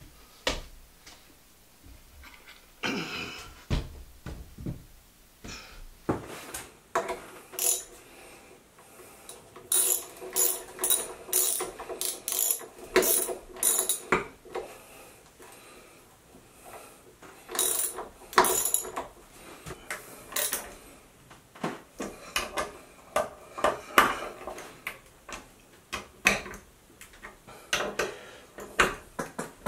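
Hand ratchet wrench clicking in runs as lag bolts are driven to fasten a cast-iron vise to a wooden benchtop, with sharp knocks of metal tools and hardware in between.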